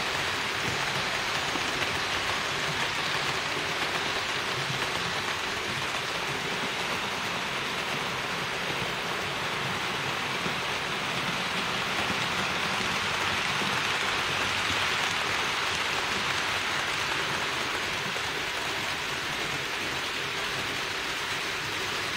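HO-scale model trains running on the layout: a steady rushing hiss of small wheels on the track and the locomotives' electric motors.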